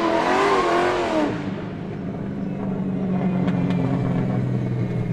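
Sports car sound effect: a revving, wavering engine note over a loud hiss for about the first second, as the car drifts, then settling into a steady low engine drone.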